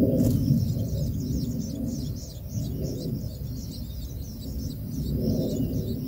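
Long-tailed shrike nestlings giving rapid, high-pitched begging chirps at the nest, over a steady low rumble. A single short knock comes a moment in.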